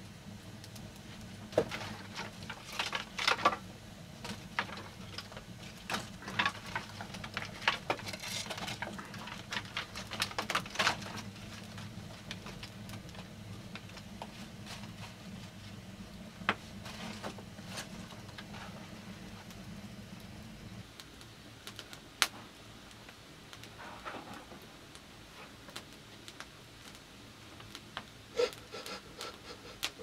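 Dry sticks of firewood being handled and pushed into a wood fire: scattered clicks, knocks and rustles, thick in the first dozen seconds and sparse after. A low steady hum stops about 21 seconds in.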